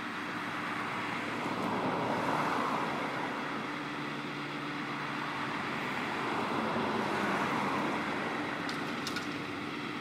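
A steady engine running, with a broad rushing noise swelling and fading twice like vehicles passing, and a few faint clicks near the end.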